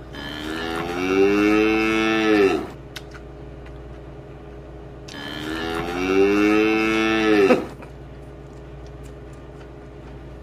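Cow mooing twice, two long moos each dropping in pitch as it ends.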